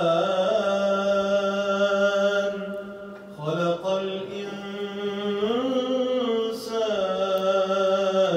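A man's voice reciting the Quran in slow, melodic tajweed style, holding long drawn-out notes. It comes in two long phrases with a short breath about three seconds in; in the second phrase the pitch climbs and then settles back down.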